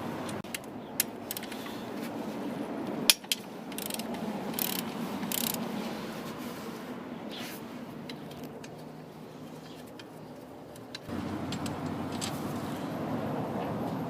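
Hand tools working on the engine while the throttle body is unbolted: a ratchet wrench clicking, with scattered sharp metallic clinks.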